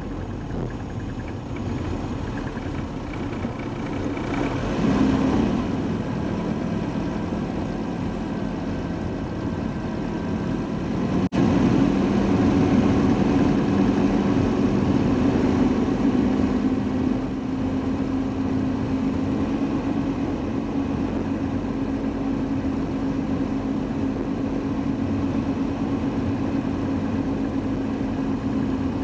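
Car engine running steadily with road noise, heard from inside a moving Mercedes-Benz W124-series car. About eleven seconds in there is a brief break, after which the engine hum is louder and steadier.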